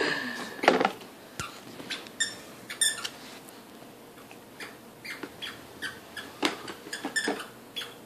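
Plastic toy push walker rolling over carpet, giving irregular short squeaks and clicks as a baby pushes it along.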